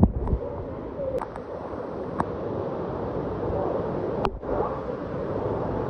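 Water sloshing and gurgling around a swimmer, heard close up, with a sharp knock right at the start and a few fainter clicks after it.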